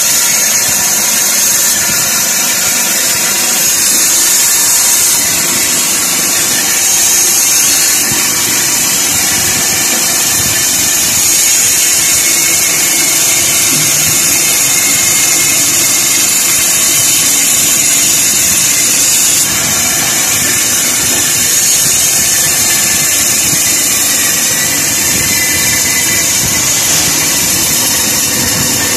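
Meat-and-bone band saw running steadily and loudly, its blade cutting through small wooden blocks fed by hand.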